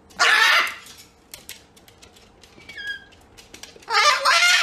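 Moluccan cockatoo screeching: two loud, harsh calls, one just after the start and one near the end. Between them comes a short, faint call falling in pitch.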